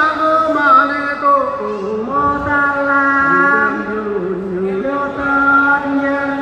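Orang Ulu parap, a chanted verse sung before a ceremonial drink: voices hold long, drawn-out notes that slide slowly between pitches.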